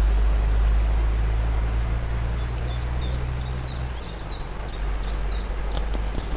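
Waterfall rushing steadily, with small birds chirping over it in the second half. Under the water a loud, steady low hum fades out about four seconds in.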